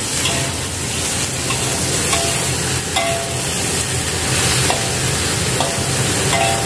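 Boiled bamboo shoots stir-frying in a wok with chilies: a steady sizzle, with a metal spatula scraping and clinking against the wok every second or so.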